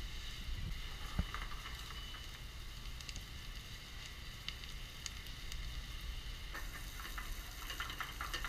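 Diced pineapple and chopped nuts sizzling in hot fat in a frying pan over a gas burner: a steady sizzle with light crackles.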